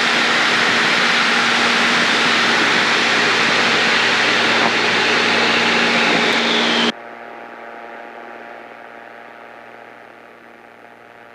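Light aircraft in flight: steady engine and wind noise in the cockpit. It cuts off abruptly about seven seconds in, leaving a much quieter hum.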